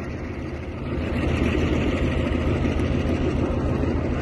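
Train engine running with a steady low rumble and a noisy hiss over it, growing louder about a second in.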